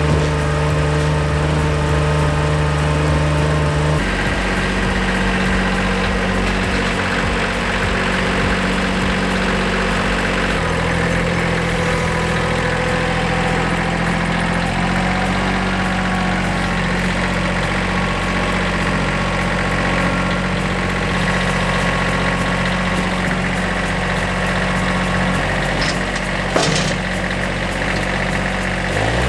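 Compact tractor engine running steadily while it works its front loader carrying a heavy axle, the engine note shifting to a different speed a few times. A short sharp knock about 26 seconds in.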